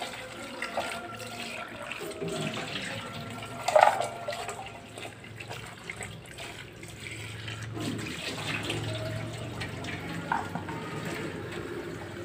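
Tap water running into a stainless steel bowl and sink while vegetables are rinsed and swished by hand in the bowl. There is a sharp knock about four seconds in and a lighter one near ten seconds.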